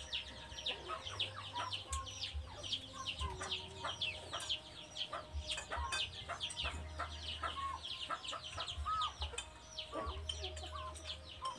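Chicks peeping without a break: many short, high, falling peeps a second, overlapping one another, with a low rumble coming and going underneath.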